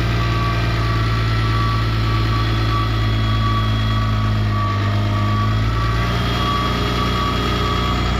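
Case 2050M crawler dozer's diesel engine running steadily as the dozer travels in reverse, with its reversing alarm beeping in a regular on-off pattern.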